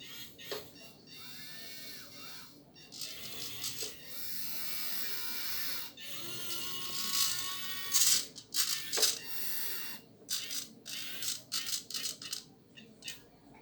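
Small electric motors and plastic gearing of a 1/14 scale 3D-printed RC forklift whining, their pitch rising and falling as they speed up and slow down. They run in longer stretches at first, then in many short start-stop bursts near the end.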